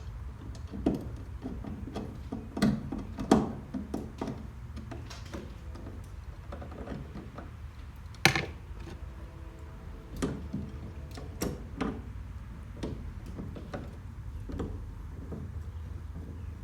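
Scattered small clicks and knocks of objects being handled, a sharper knock about eight seconds in, over a low steady hum.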